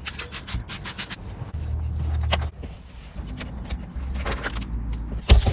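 Handling sounds inside a car: a quick run of clicks and rattles, a low hum that comes and goes twice, and a sharp knock near the end.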